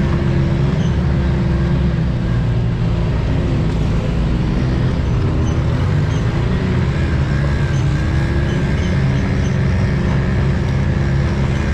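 Can-Am Maverick X3 side-by-side driving on a trail, its engine running steadily over a low rumble, the engine note rising and falling a little with the throttle. A faint high whine joins about halfway through.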